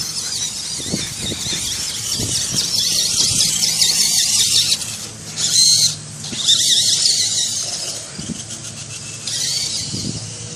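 Radio-controlled car's electric motor and gears whining at a high pitch, wavering up and down with the throttle in spurts, with short pauses between runs.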